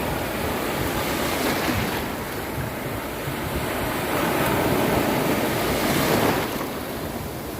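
Ocean waves breaking on a beach in a continuous wash of surf, swelling twice and easing back, with some wind rumble on the microphone.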